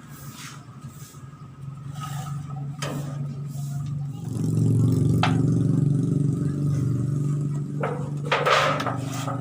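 A small engine running, getting louder and revving up about four seconds in, with a few sharp knocks and scrapes over it near the end.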